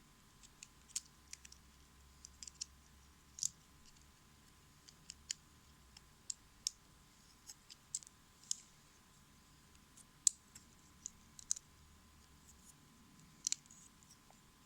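Irregular small plastic clicks and snaps of a Bakugan Dragonoid figure's hinged parts being worked by hand as it is pushed toward its ball form; the parts are stuck and won't close.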